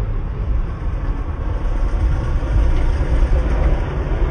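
Passing road traffic: a steady low rumble of car engines and tyres that swells a little about halfway through.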